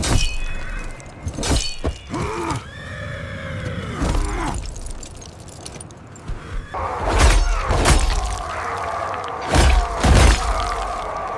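Battle sound effects: a series of loud crashes and impacts, several in quick succession near the start and a cluster in the second half, over dramatic background music.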